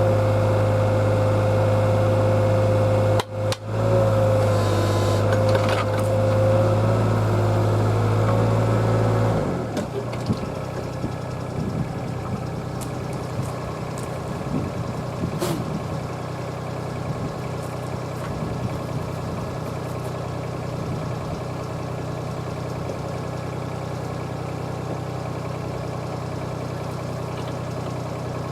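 Kobelco mini excavator's engine running steadily at raised revs with a whining tone over it; about nine and a half seconds in, the revs drop and the whine stops, and the engine settles to a quieter idle with a few light knocks.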